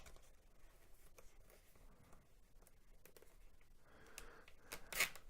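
Plastic zip tie being pulled tight around wires on a helmet strap: faint rubbing and small ratchet clicks, with a quick run of sharper clicks near the end.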